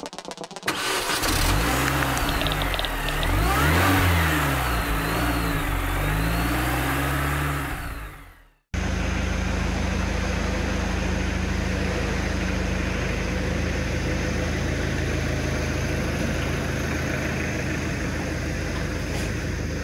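An engine revving up and down with whooshing noise over it, as an intro sound effect. It cuts off abruptly and gives way to a steady low mechanical hum in a workshop.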